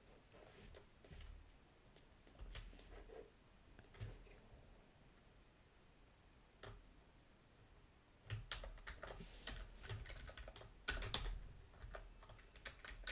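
Typing on a computer keyboard: a few scattered keystrokes at first, then a quick run of typing from about eight seconds in.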